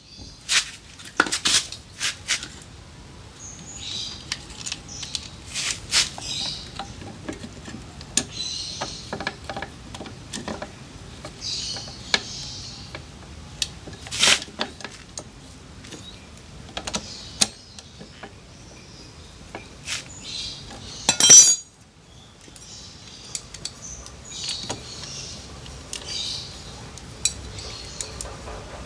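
Metal tools and parts clinking and tapping in irregular sharp clicks as parts around a Honda Beat FI scooter's cooling fan are refitted by hand, with a louder clatter about 21 seconds in.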